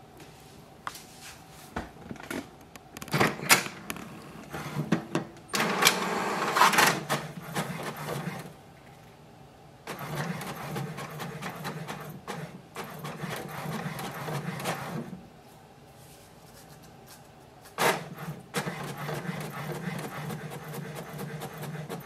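HP DeskJet 2752e inkjet printer working through a print job: clicks as it starts, then stretches of mechanical whirring and rattling separated by short pauses, as the sheet is fed through, printed and pushed out onto the output tray.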